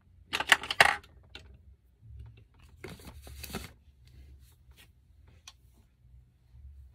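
Handling noise: two bursts of crackling, crinkling rustle, the louder in the first second and another about three seconds in, with a few faint clicks between.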